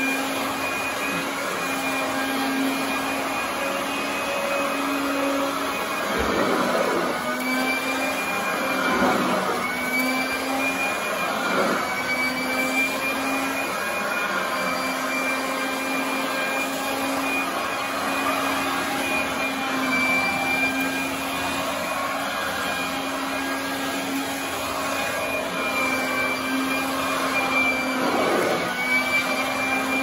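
Royal commercial upright vacuum running steadily on carpet, a constant motor whine whose pitch wavers slightly as the head is worked back and forth. A few louder swishes come with the strokes.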